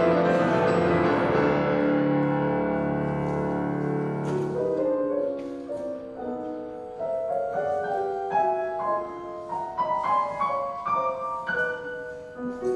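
Bechstein grand piano being played: a held chord rings and slowly fades for the first few seconds, then single notes follow one after another in a slow melody.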